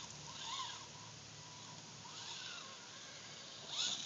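Radio-controlled rock crawler's electric motor and gears whining in short throttle bursts, each rising then falling in pitch, as it creeps down a rock face. A sharp knock near the end as it reaches the bottom.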